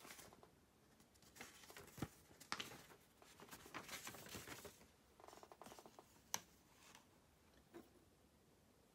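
Faint handling of small plastic model-kit parts: soft rustling with a few sharp clicks and snaps, and a quick run of tiny ticks about five seconds in.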